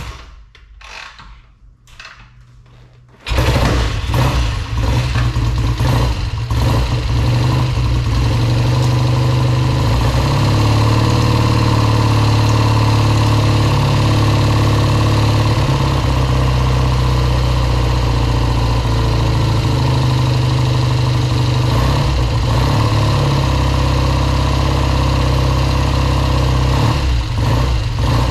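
1970 Triumph T120R Bonneville's 650 cc parallel-twin engine catching about three seconds in, after some quieter mechanical noises. It runs unevenly for a few seconds, then settles into a steady run.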